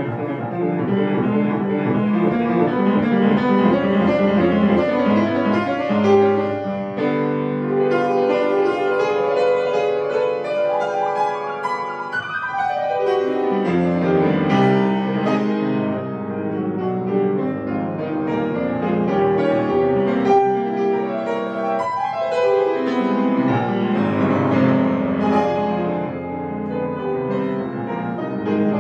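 Petrof grand piano played solo: a fast classical piece in dense chords, with two quick descending runs down the keyboard, one a little before halfway and one about three-quarters through.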